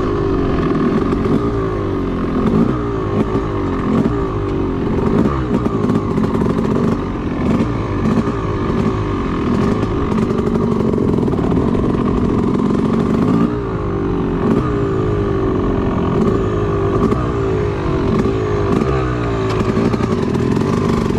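Yamaha YZ250 two-stroke dirt bike engine being ridden hard, revving up and dropping back over and over as the throttle is worked through the gears, with occasional short knocks and clatter.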